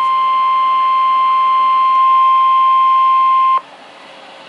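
Midland WR100 weather radio sounding the NOAA Weather Radio 1050 Hz warning alarm tone: one steady beep that cuts off suddenly about three and a half seconds in, leaving a faint hiss from the radio. The tone is the signal that a warning broadcast is about to follow.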